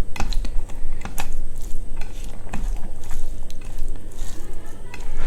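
Close-up eating sounds: scattered sharp clicks and knocks of food being handled on a plate, with chewing of spicy quail curry and rice.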